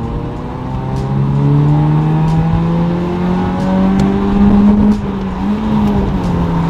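Honda Civic's engine pulling under acceleration, its pitch climbing slowly for about five seconds, then dropping near the end as the revs fall.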